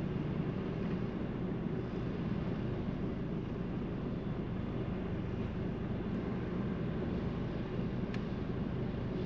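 Steady low hum of a car engine idling, heard from inside the parked car's cabin.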